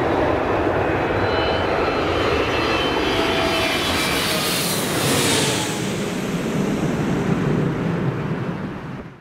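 Twin-engine jet airliner flying low overhead on approach: the engine whine builds to its loudest about four to five seconds in, with high tones falling in pitch as it passes over, then eases off and fades away near the end.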